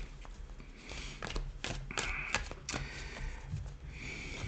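Tarot cards being shuffled and handled on a table: a faint run of light snaps and slides of the cards.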